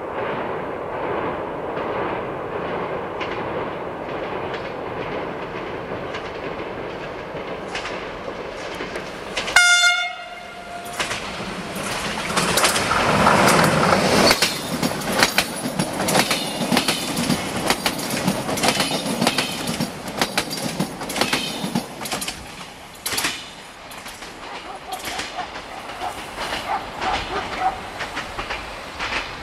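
Siemens Desiro diesel multiple unit approaching, giving one short horn blast about a third of the way in, then passing close by with its engine running and a rapid clatter of wheels over rail joints that thins out as it moves away.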